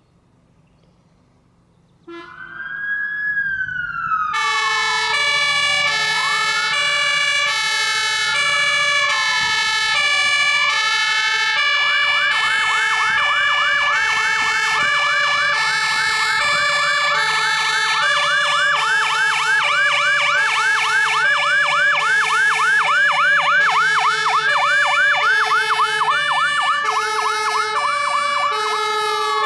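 Scania P410 fire engine sounding its emergency signals. About two seconds in a siren starts, rising and falling in a slow wail. About two seconds later a two-tone Martin horn joins, alternating steadily between a low note and a high note. From about eleven seconds the siren switches to a fast yelp under the horn, and it falls away at the very end. The truck's engine runs faintly underneath.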